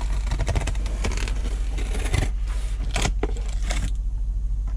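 Utility knife blade slicing through packing tape and cardboard on a shipping box: a crackling, scraping run of cuts with a few sharp clicks, easing off near the end.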